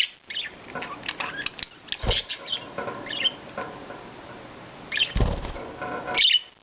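Pet budgie making short high chirps and chatter over small clicking sounds of pecking at broccoli, with two low thumps about two seconds and five seconds in.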